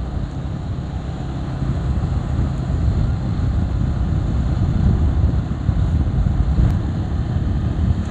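Steady, loud rumble of wind on the microphone mixed with the running and road noise of a moving vehicle.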